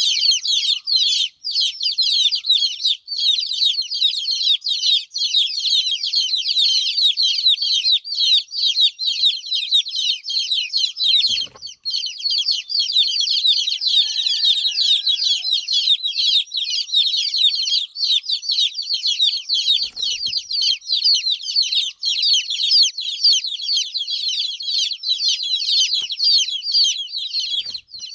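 A crowd of baby chicks peeping nonstop: a dense chorus of high, quick, downward-sliding chirps, with a brief break about eleven seconds in.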